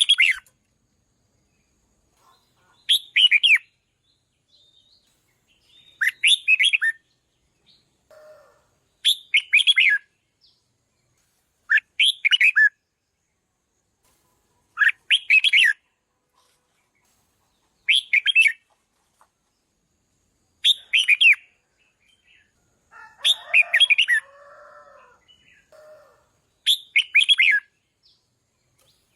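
Red-whiskered bulbul singing short, bright warbled phrases, one about every three seconds, ten in all. A softer, lower chattering comes in briefly about a third of the way through and again near the end.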